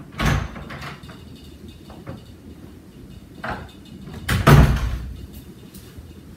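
A thump just after the start and a louder one about four and a half seconds in, with a few lighter knocks between them, over a steady low hum.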